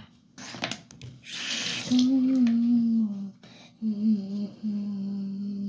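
Bathroom tap turned on: a brief rush of water, then a steady pitched hum from the running tap, breaking off twice before it stops.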